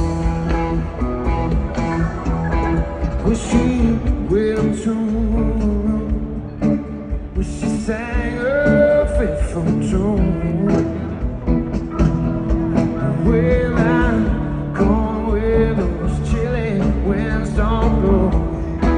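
Live rock band playing, with lead electric guitar lines bending in pitch over bass and drums, heard from the audience.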